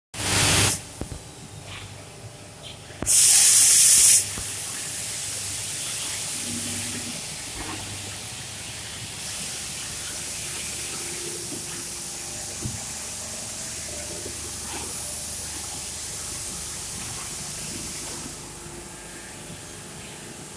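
Vacuum forming machine hissing air during a test run: a short loud blast of air at the start and a louder one of about a second near three seconds in, then a steady hiss that runs on.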